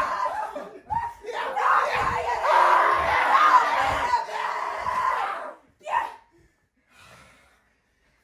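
Several people screaming, yelling and laughing without clear words during a rough play-fight, with a few dull thuds of bodies hitting the floor or furniture. The voices stop about five and a half seconds in, after which comes one short cry.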